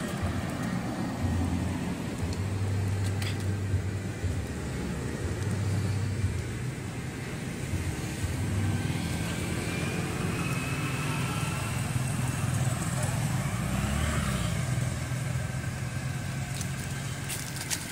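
Steady engine hum of road traffic, with faint voices in the background.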